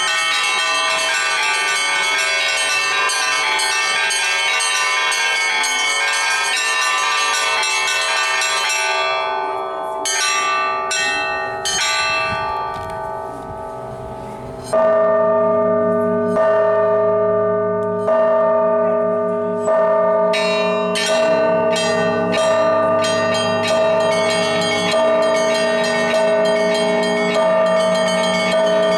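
Russian Orthodox church bells rung by one bell ringer. A dense peal of small, high bells thins out and dies away around the middle. Then a heavier, deeper bell strikes about every second and a half to two seconds, with the smaller bells chiming in again.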